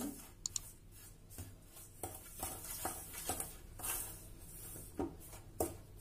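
Spoon stirring and scraping butter and powdered sugar against a stainless steel bowl, in faint, irregular strokes and light taps.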